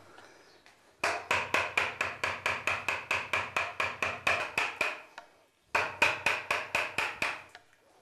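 Wooden mallet striking a carving gouge into juniper wood to rough out the carving deeper: quick, even knocks at about five a second, in two runs with a short pause about five seconds in.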